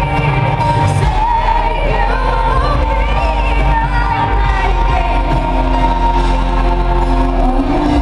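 Female lead vocalist singing a slow pop ballad live over the band, holding long notes that waver and glide in pitch, heard as an arena concert recorded from the crowd.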